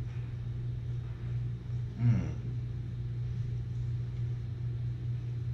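A steady low hum, with a brief murmur from a man's voice about two seconds in.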